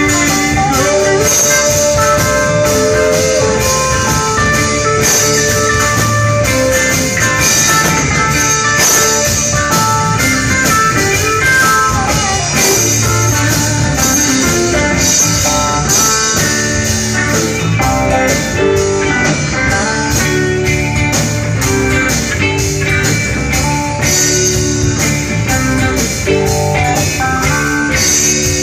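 Live blues-rock band playing an instrumental stretch: a melodic guitar lead over strummed acoustic guitar, electric bass and drum kit.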